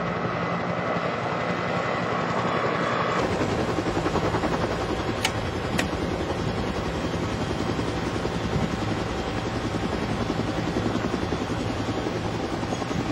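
Helicopter in flight: steady rotor and engine noise that changes in tone about three seconds in. Two sharp clicks come a little after five seconds.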